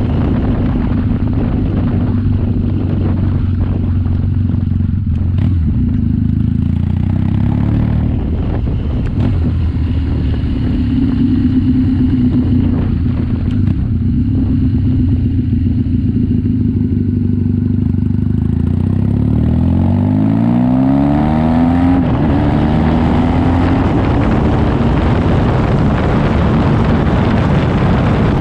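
BMW R nineT's air/oil-cooled boxer twin running under way. A bit past halfway through, the engine note climbs steadily as the bike accelerates, then holds at a steady cruise.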